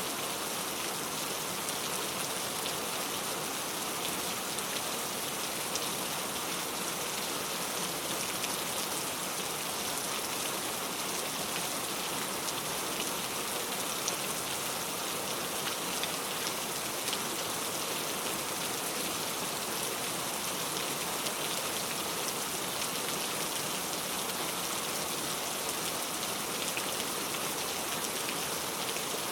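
Heavy rain falling steadily, a dense even hiss with many small drop ticks on a hard surface.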